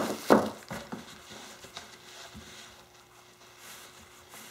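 Bubble-wrap packaging crinkling and two sharp knocks as a wrapped metal part is set down on a table in the first half-second, followed by a few lighter ticks of handling. After that, only faint rustling over a low steady hum.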